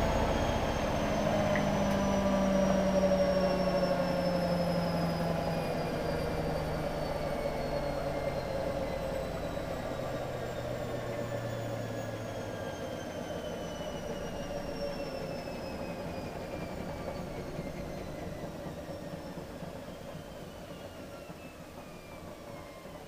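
Hotpoint WM63 washing machine's drum and motor winding down after the final spin. The whine falls steadily in pitch and the sound fades away.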